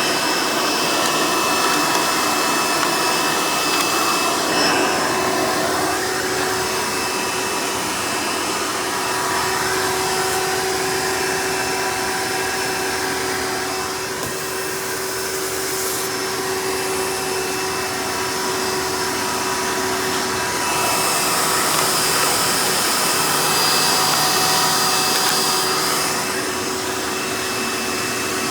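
Hoover Elite direct-air upright vacuum running on its hose in tool mode: a steady motor whine over rushing air. It dips a little around the middle and comes back up near the end.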